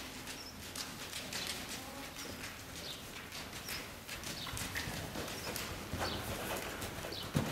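Hoofbeats of a ridden horse moving around an indoor arena on sand footing, a running series of strikes.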